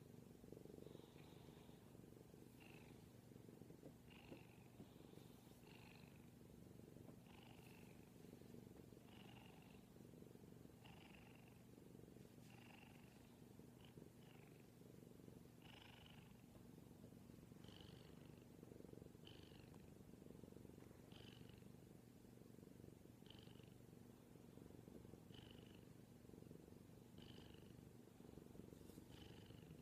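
Bengal cat purring softly and steadily while being petted, close to the microphone, with a short higher sound recurring about every two seconds.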